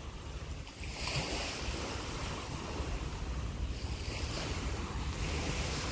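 Wind blowing over a phone microphone, a steady low rumbling noise.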